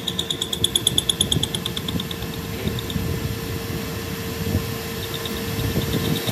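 Metal lathe running as it turns a welded truck axle shaft: a steady motor hum with a high squeal that pulses several times a second, fades out about halfway through and comes back near the end.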